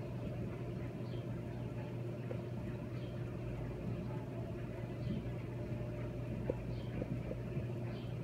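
Large barn wall fan running with a steady low hum, with faint light ticks about once a second over it.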